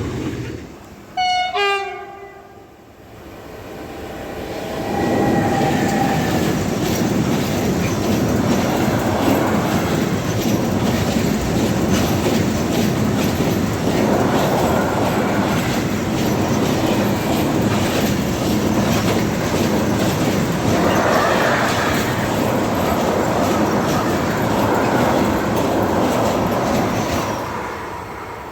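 A train horn gives one short blast, then a train passes close by, its wheels clattering over the rail joints in a long, steady rush of noise that fades away near the end.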